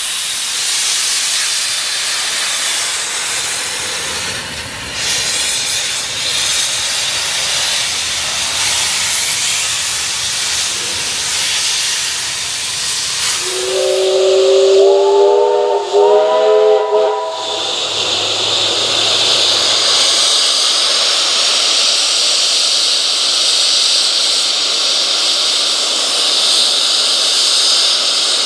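AD60-class Beyer-Garratt 6029 steam locomotive: a steady hiss of steam escaping from its open cylinder drain cocks. The locomotive's steam whistle sounds for about four seconds midway, its pitch stepping up slightly.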